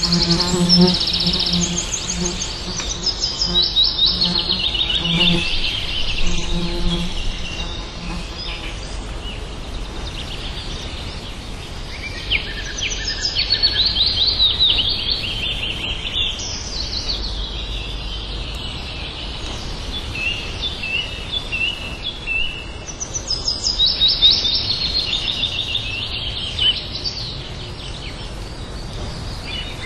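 Songbirds chirping and trilling, several calls overlapping and coming in waves. A low, pulsing tone sounds beneath them for roughly the first seven seconds.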